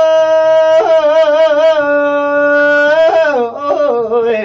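A man's singing voice holds one long sustained note with a slow vibrato. Just after three seconds it slides down to a lower note.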